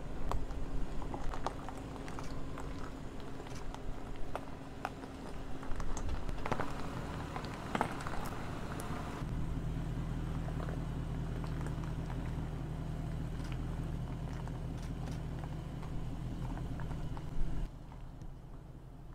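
Land Rover Defender V8 crawling over a steep loose-gravel track: stones crunch and pop under the tyres over a low engine rumble. About nine seconds in this gives way to a steady low drone of the engine at low revs, which drops away near the end.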